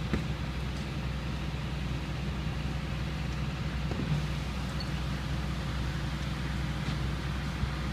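Engine idling: a steady low rumble.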